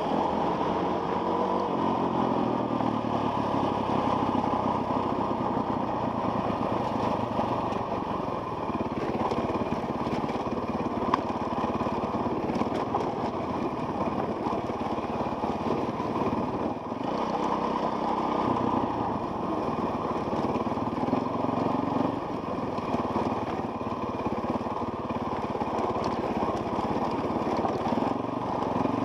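Dirt bike engine running steadily as the bike rides along a dirt trail, with small dips in throttle, heard from the rider's helmet camera.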